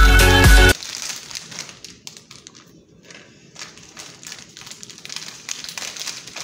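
Music cuts off abruptly under a second in. Then a Fritos chip bag crinkles and crackles in a run of sharp little clicks as it is pressed and handled on a stone countertop.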